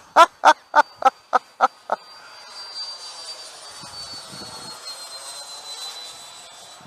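Freewing F-22 90 mm electric ducted-fan model jet flying past: a steady fan whine whose high tone slowly falls in pitch as it goes by. At the start, a quick string of about seven loud pitched calls sounds over it.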